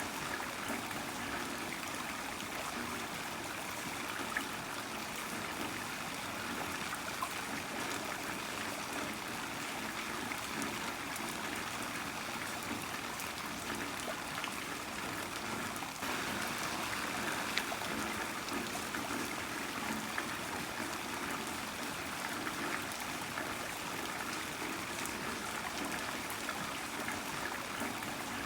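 Heavy rain falling steadily, an even hiss of water with scattered individual drop ticks and trickling runoff.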